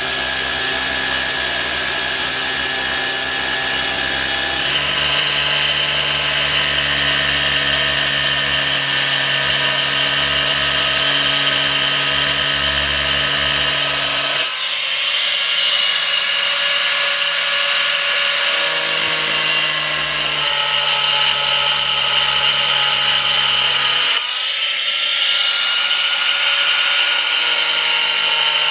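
Electric angle grinder with a cutting disc running, cutting into a plastic drum: a steady high-pitched whine that changes abruptly about 5, 14 and 24 seconds in.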